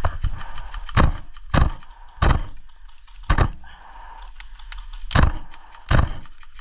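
Tokyo Marui MTR-16 gas blowback airsoft rifle firing single shots, about six sharp cracks spaced irregularly, between roughly half a second and two seconds apart.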